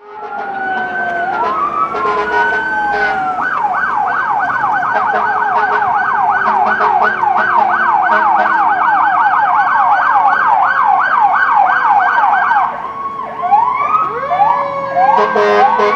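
Several emergency-vehicle sirens sounding together. A wail sweeps slowly up and down, then a fast yelp runs for about nine seconds over a lower siren slowly falling in pitch. Near the end more sirens join with quick glides and a stepping two-tone pattern.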